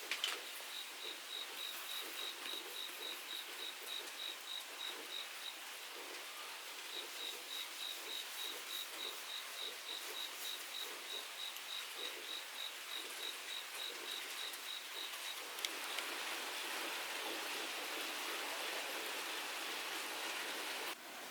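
A cricket chirping in a steady run of short, high chirps about four times a second, pausing briefly and starting again, over the hiss of rain. Near the end the chirping stops and the rain hiss grows louder.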